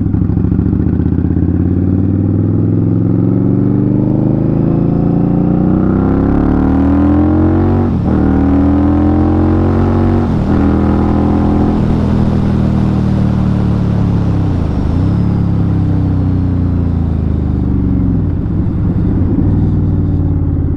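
Indian Scout Bobber Twenty's V-twin engine running while the motorcycle is ridden. Its pitch climbs for several seconds, with short dips where it shifts gear.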